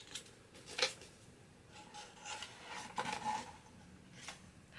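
Faint rustling and rubbing of hands handling a small bag and the small items poured from it, with a few light clicks and taps, the sharpest about a second in.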